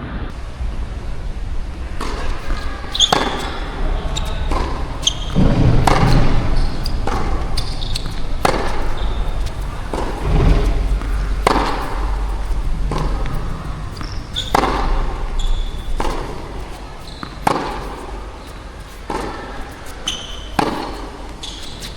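Tennis ball struck by racquets and bouncing on the court in a rally, a sharp hit or bounce about every second, with wind rumbling on the microphone and swelling in gusts.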